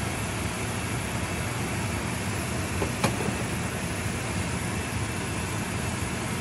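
Pot of soup broth at a rolling boil, bubbling steadily, with one sharp click about three seconds in.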